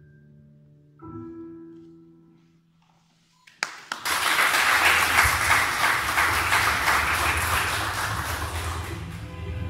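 Keyboard music: sustained notes and a chord about a second in ring out and fade to near silence, then from about four seconds in a loud, steady rushing noise with a low hum beneath it takes over and slowly fades.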